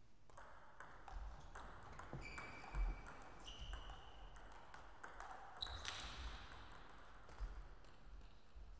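Scattered light clicks and pings of a table tennis ball bouncing as a player gets ready to serve, with a few short ringing tones.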